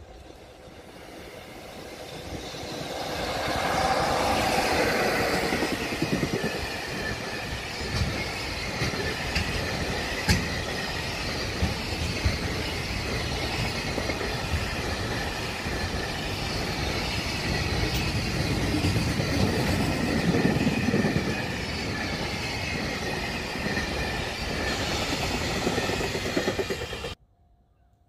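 A freight train of container wagons passing close by. It grows louder over the first few seconds, then the wagon wheels clatter steadily over the rails with scattered knocks. The sound cuts off suddenly near the end.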